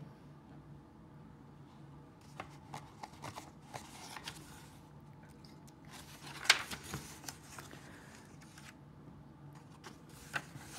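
Paper pages of a picture book rustling and flipping as they are turned by hand, in scattered short rustles and soft clicks, the loudest about six and a half seconds in.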